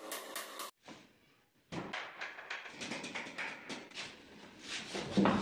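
Hammer blows, wooden knocks and clatter from a plywood sofa frame being nailed together and then handled, with a louder thud near the end.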